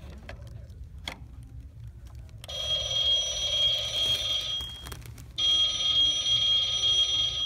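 Old-style rotary-dial novelty telephone ringing twice: each ring lasts about two seconds, with a short pause between them. The first ring starts a little over two seconds in.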